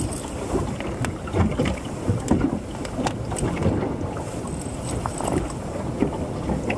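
Water lapping and slapping against the hull of a small moored fishing boat, with wind on the microphone and scattered small clicks and knocks.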